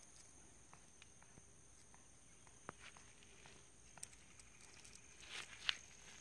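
Near silence broken by faint scattered clicks and patter of a small dog moving on asphalt, then a brief rustle ending in a sharp click about five and a half seconds in. A faint steady high-pitched tone runs underneath.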